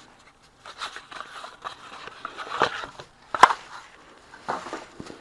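Handling noise of unpacking: cardboard packaging and a rubber power cable rustling and scraping, with two sharp knocks a little under a second apart past the middle as pieces of the soldering tweezer station are set down on the silicone mat, the second the loudest.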